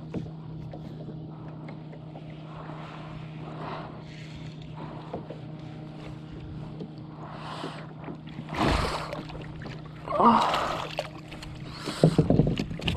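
Water splashing and knocks against a plastic fishing kayak as a hooked flathead is fought at the side and landed on the deck: scattered short splashes and bumps, the loudest a thump about nine seconds in, with more knocks near the end.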